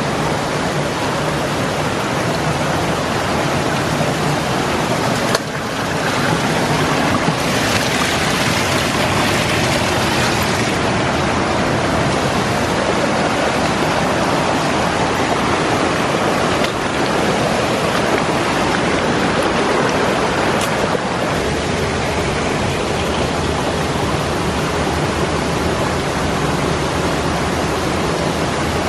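River water rushing steadily: a loud, even wash of noise from a fast-flowing stream.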